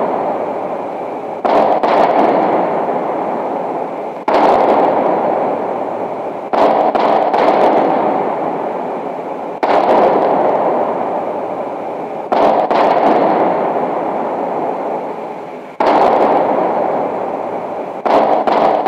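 Dramatic sound-effect hits laid over the scene: seven loud crash-like booms, one every two to three seconds, each dying away slowly before the next.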